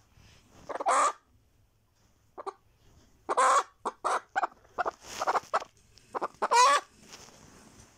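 Naked-neck hen clucking and calling: a run of about a dozen separate clucks, with louder, longer calls about a second in, around the middle, and near the end.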